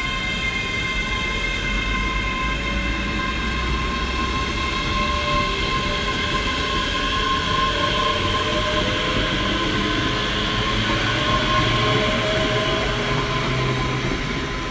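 ScotRail electric multiple unit moving along the platform with a steady electric whine from its traction equipment and a tone that slowly rises in pitch as it picks up speed, over the rumble of wheels on the rails.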